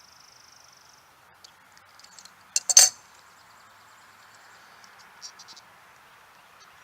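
Sharp clicks and clinks of a plastic RV city-water inlet fitting being handled and threaded back on by hand, loudest as a quick cluster of clicks a little before the middle. An insect trills steadily for the first second.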